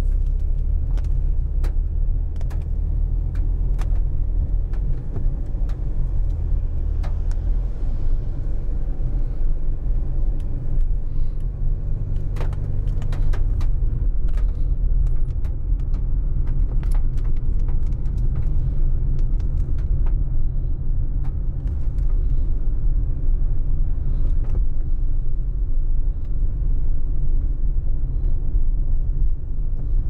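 Steady low road and engine rumble heard from inside a car driving on a wet road, with scattered sharp ticks of raindrops hitting the windscreen.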